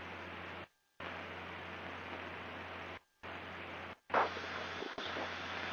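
Steady hiss of cockpit cabin noise through the intercom, with a low engine hum beneath. It cuts out to dead silence three times in abrupt dropouts, and there is a short louder burst a little after four seconds.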